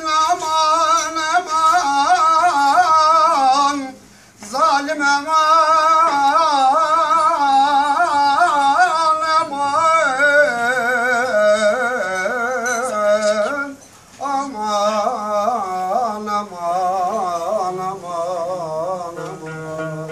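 A man sings a Turkish folk song in a wavering, heavily ornamented voice, accompanied by a plucked long-necked lute with a round, drum-like body. The voice breaks off briefly about 4 seconds and 14 seconds in. Near the end the singing fades and the plucked accompaniment carries on.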